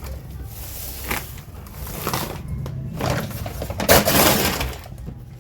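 Crackling and rustling of grocery packaging being handled, with a louder burst of crackling about four seconds in.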